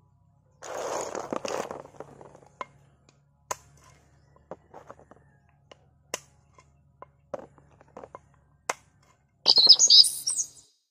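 Bagungon snail shells handled on a woven bamboo tray: a brief rustle of shells, then a string of sharp, separate clicks and taps as shells are picked up and set down. Near the end a bird chirps briefly, the loudest sound.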